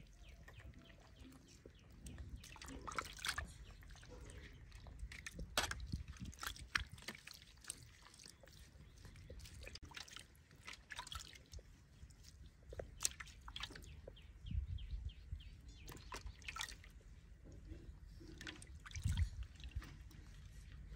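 Water splashing and dripping in a metal washbasin as hands scoop and rub bath water over a baby monkey, in small irregular splashes with a few louder sloshes.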